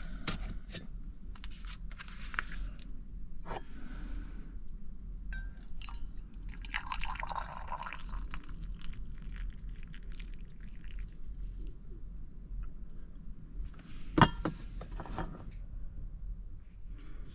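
Hot water poured from a Jetboil cooking cup into a stainless steel mug for about two seconds, with small handling clicks and knocks around it. A single sharp clank about 14 seconds in is the loudest sound.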